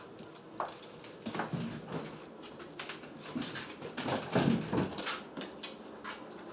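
Young American pit bull terrier moving around on a vinyl kitchen floor: scattered light clicks and taps of claws and paws, with a louder low thump or huff about four and a half seconds in.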